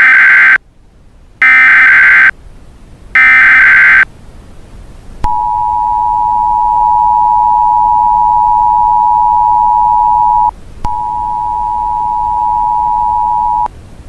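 Emergency Alert System SAME header: three short, loud bursts of screeching data tones about a second and a half apart. Then the two-tone EAS attention signal, a steady, harsh, dissonant tone lasting about five seconds, breaks off briefly and resumes for about three more.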